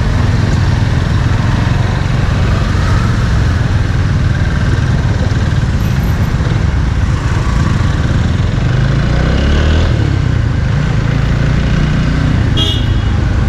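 Hero XPulse motorcycle's single-cylinder engine running through a modified exhaust with the silencer baffle removed, giving a steady low rumble that swells and rises about two-thirds of the way in. A brief high horn-like toot sounds near the end.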